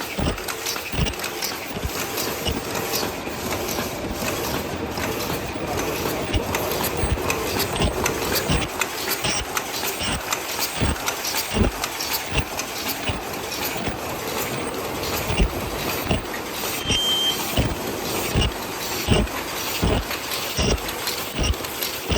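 OCM100 ultrasonic paper cup machine running in production, a steady mechanical clatter with short knocks repeating about twice a second as the cam-driven stations cycle.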